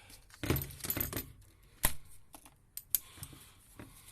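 Small clicks and rattles of hands working the crank position sensor's plastic connector and nearby tools in an engine bay: a rattling clatter about half a second in, a sharp click near two seconds, then a few lighter taps.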